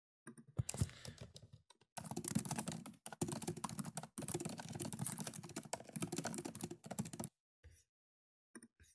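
Typing on a computer keyboard. A few scattered keystrokes come first, then a fast run of key clicks from about two seconds in to about seven, and a couple of separate clicks near the end.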